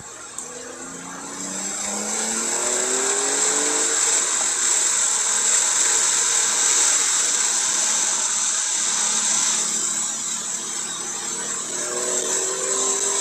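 Porsche 911 Carrera 4S's twin-turbo flat-six accelerating, heard from the cabin, its note climbing for the first few seconds. Under it runs a loud steady hiss of tyres on a wet track with standing water. Near the end the engine note comes through again, rising slowly.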